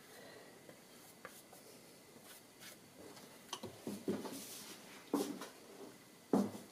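Soft, scattered taps and rustles from a paintbrush and painting materials being handled, with a few slightly louder knocks in the second half.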